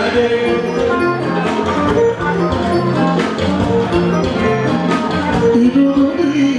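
Fuji band music playing loud: a line of held pitched notes stepping through a melody over steady drums and percussion.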